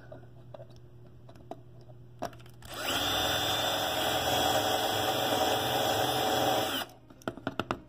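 Power drill running as its bit bores out the die-cast rivet that holds the windshield of a Lesney Matchbox toy truck: a steady whine over grinding noise. It starts about three seconds in and cuts off suddenly about four seconds later.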